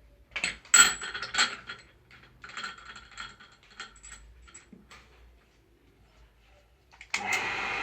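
Light metallic clinks and knocks for a few seconds, then about seven seconds in the electric dynamo motor of a homemade machete-sharpening machine starts and runs steadily.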